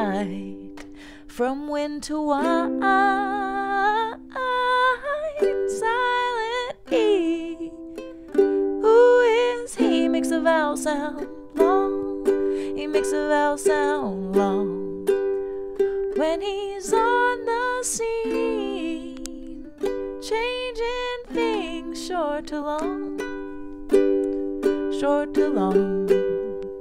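A woman singing while strumming chords on a ukulele.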